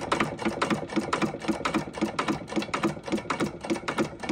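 Stover KE 1½ hp hit-and-miss engine coasting on its flywheels between firings, its mechanism clicking steadily about four times a second with no power stroke.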